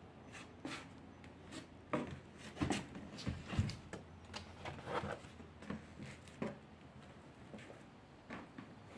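Irregular light knocks and rustles, a cluster of louder knocks from about two to five seconds in, over a faint steady hum.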